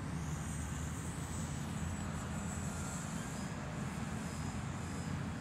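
Parkzone Corsair RC plane's electric motor and propeller giving a faint high whine as it flies overhead, over a steady rumble of wind on the microphone.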